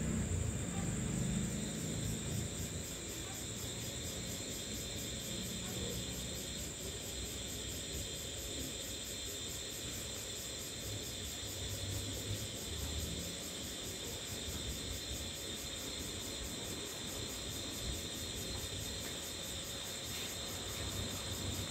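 Cicadas calling steadily: a high-pitched buzz with a fast, even pulse.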